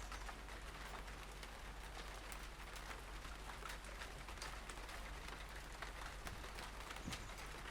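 Raw outdoor ambience: a steady low wind rumble on the microphones under a soft hiss, with faint scattered ticks throughout.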